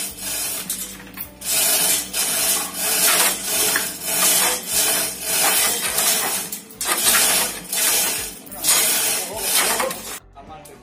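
Line-array speaker stack being hauled up a truss tower: a rhythmic rasping of the hoist, about one pull a second, cutting off sharply near the end.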